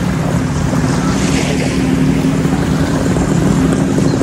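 A steady low engine drone, with the wash of small waves and wind.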